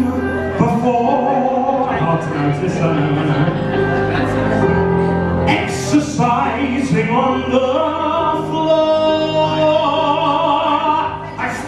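A man singing live into a microphone over backing music, amplified through stage speakers, with long held notes.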